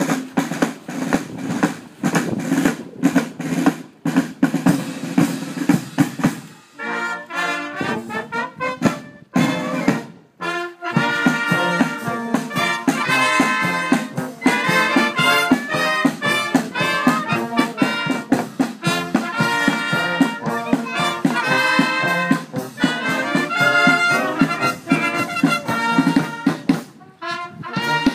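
Village wind band with trumpets, trombones, tuba, flutes and bass drum playing a tune outdoors. The playing breaks off briefly about seven and about ten seconds in, then the full band plays on with a steady drum beat.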